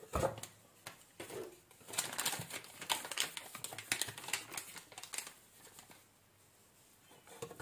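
Paper wrapping of blocks of cottage cheese crinkling and rustling in irregular crackles as it is peeled open by hand, dying down after about six seconds.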